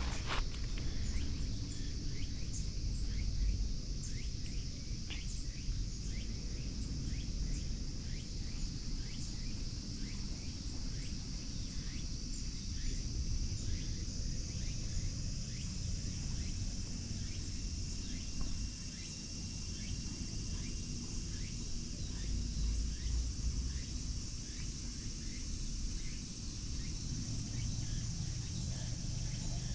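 Outdoor ambience: a steady high-pitched drone of insects with many short chirps, over a continuous low rumble on the microphone.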